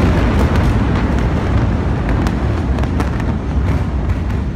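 Deep rumbling roar of a huge explosion and fireball slowly dying down, with scattered sharp cracks and pops from burning, sparking debris.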